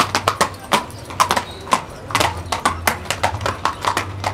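A rapid, irregular clatter of sharp knocks, several a second, over a low steady hum.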